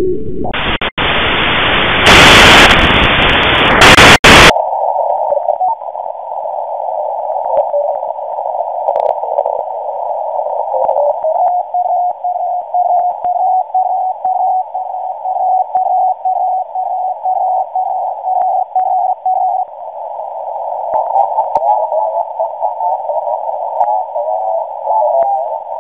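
Shortwave radio heard through a WebSDR online receiver: hiss that widens about a second in, then a loud harsh blast of static for about two seconds. After that the sound turns thin and narrow, and a steady beeping tone with short regular breaks sounds through the static. Near the end it gives way to warbling digital data tones after the receiver is retuned.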